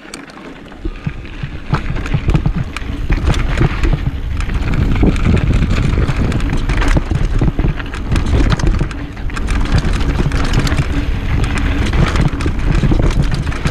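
Trek mountain bike riding fast down a rocky trail: tyres crunching over rock and gravel with a rapid clatter of knocks and rattles from the bike over the bumps, and wind rushing on the microphone. The noise builds over the first couple of seconds as the bike picks up speed.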